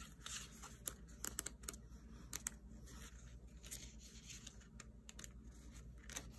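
Paper sticker-book pages rustling as they are turned, with scattered light clicks and taps of handling.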